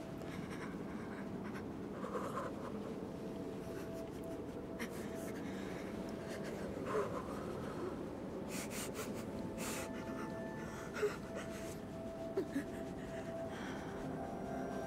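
Soft scratchy rustling of clothes against the ground, with a boy's shaky breaths in the cold, over a steady low ambient hum; a few sharper rustles stand out, around seven, eleven and twelve seconds in.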